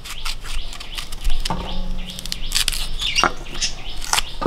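Knife blade scraping and cutting the skin of a raw green mango in short strokes, with birds chirping in the background.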